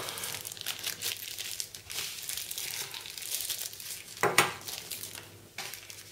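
Thin plastic wrapping crinkling and crackling as a phone charger's mains plug is unwrapped by hand, with a louder crackle a little past halfway.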